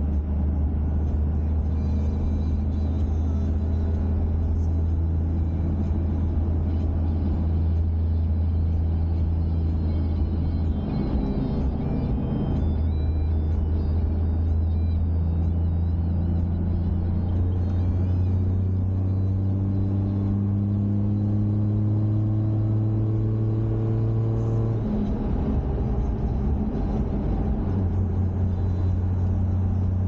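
A road vehicle's engine running while under way, a steady low drone. Its pitch shifts several times, climbing gradually for several seconds past the middle and then dropping suddenly.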